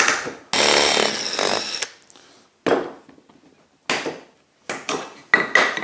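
A drill bit cutting into a wooden clamp bar as an angled hole is forced wider, so a threaded rod can move from side to side in it. There is one long scraping pass about half a second in, then several shorter strokes.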